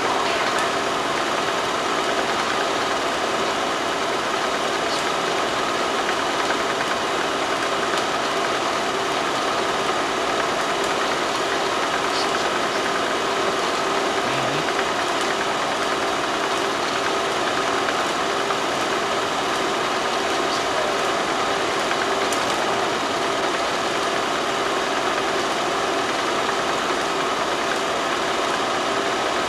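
Steady mechanical running noise, an even hum with hiss that does not change.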